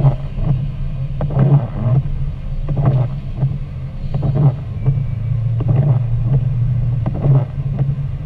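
A car driving on a wet road, heard from inside the cabin: a steady engine and tyre drone. The windshield wipers sweep about once every second and a half, each sweep giving a short pair of knocks.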